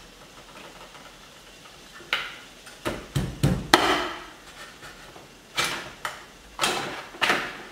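Chinese cleaver chopping through a lobster's legs and shell onto a wooden cutting board: a string of sharp chops starting about two seconds in, several in quick succession around the middle and a few more near the end.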